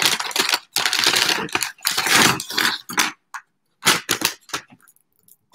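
Crinkly wrapping rustling and crackling in loud bursts as a package is unwrapped by hand, thinning to a few light crackles in the last second or so.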